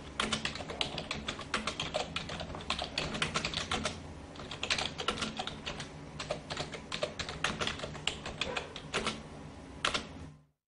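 Computer keyboard typing sound effect: fast, irregular key clicks, over a low steady hum. The clicks stop shortly before the end.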